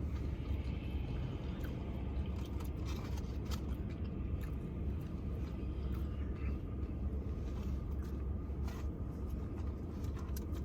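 Nacho chips being bitten and chewed, a few short crunches at intervals over a steady low rumble.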